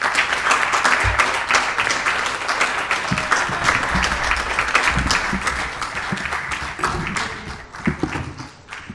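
A small audience applauding: a dense patter of hand claps that thins out and fades near the end.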